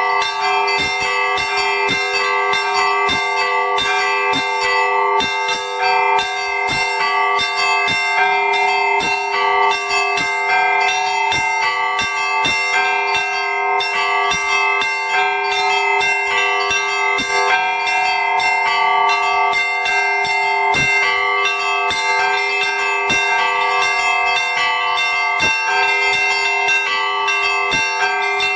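The church's new Orthodox bells being rung in the Russian zvon style: quick, evenly repeated strikes on the smaller bells over the sustained ringing of the larger ones, without a break.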